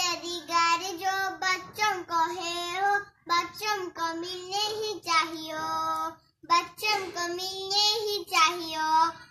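A young girl singing a Hindi song unaccompanied, in held, slightly wavering notes, with short breaks between phrases about three and six seconds in.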